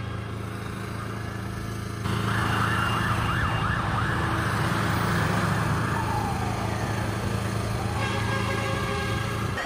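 Fire truck siren starting about two seconds in with a fast up-and-down yelp, then slowing to a wail that falls and rises again, over the steady low hum of a vehicle engine.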